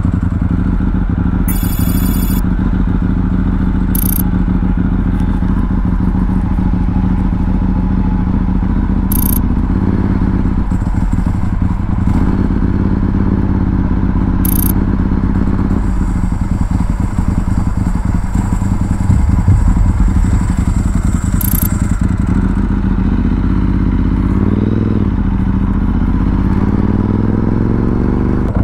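Ducati 748R's L-twin engine running as the bike is ridden at low speed. Near the end the revs climb, dip once and climb again as it accelerates.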